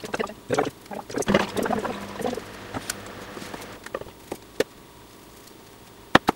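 Chef's knife cutting a fennel bulb on a wooden cutting board: a quick run of crisp cuts and knocks in the first two seconds or so, then a few scattered knocks as the cut pieces are handled on the board.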